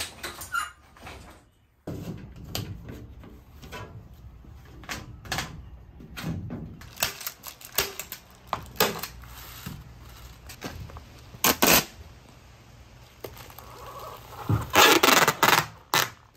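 Sheet-metal ductwork being handled and worked: a run of metallic clicks, knocks and clatter. Near the end comes the loudest stretch, several harsh rasping bursts, consistent with foil duct tape being pulled off its roll.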